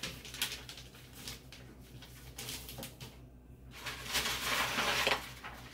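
Soft rustling and brushing of an infant bodysuit being laid on a heat press platen and smoothed flat by hand, with a few light taps. The rustling is louder near the end, over a faint steady low hum.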